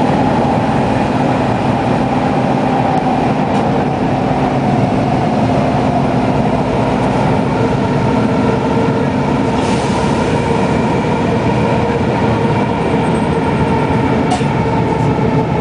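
Subway train running, heard from inside the passenger car: a loud, steady rumble of wheels and motors with a faint steady whine under it. A short hiss comes about ten seconds in and a sharp click near the end.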